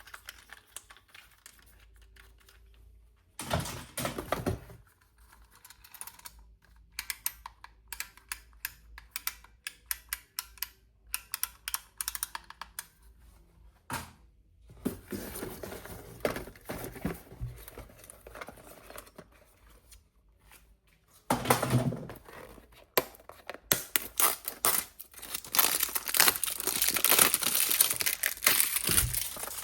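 Plastic toy packaging being handled and torn open. There are stretches of crinkling and tearing broken up by rapid runs of small clicks and taps, and the longest, loudest crinkling comes near the end.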